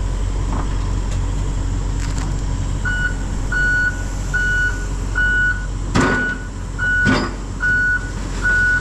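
John Deere 135G excavator's diesel engine running steadily. About three seconds in, its travel alarm starts beeping, roughly one beep every 0.8 seconds, as the machine tracks. Two loud clanks come near the end.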